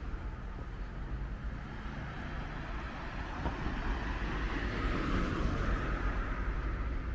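Street traffic: a steady low rumble, with a car passing close that swells to its loudest about five seconds in.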